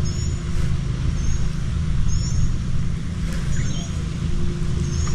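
A steady low rumble with a faint steady hum, over which a small bird chirps short, high two-note calls about once a second.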